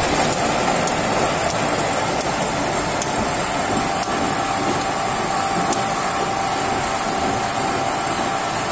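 Metal lathe running with a steel spur gear spinning in it: a steady mechanical din, with a faint high whine that sets in about halfway through.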